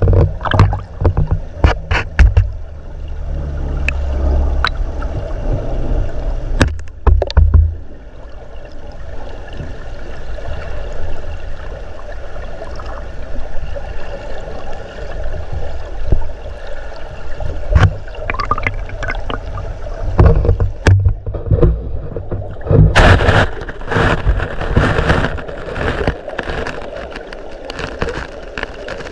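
River current heard through an underwater camera: a muffled low rumble and gurgle, broken by sharp clicks and knocks. About 23 seconds in it turns into a louder, hissy splashing rush.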